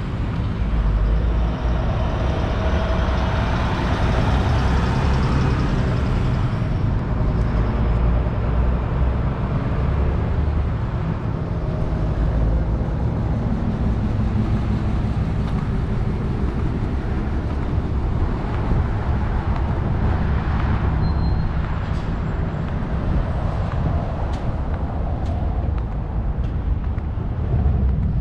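Vehicle engine and road noise from a slowly moving vehicle: a steady low rumble, with a brighter hiss over it for the first few seconds and a few faint clicks near the end.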